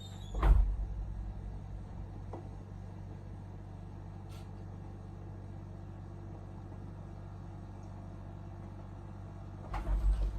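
A steady low hum, with a heavy thump about half a second in and a few more low bumps near the end.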